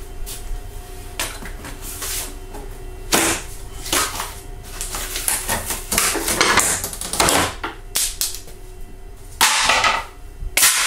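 Irregular scraping swishes and light knocks of freshly CNC-cut wooden shapes being handled and worked over by hand, with a faint steady hum underneath.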